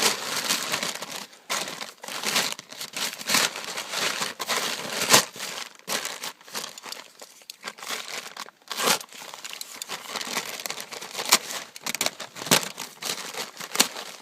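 Plastic lumber tarp crinkling and rustling in irregular bursts, with sharp crackles, as it is handled and cut with a knife.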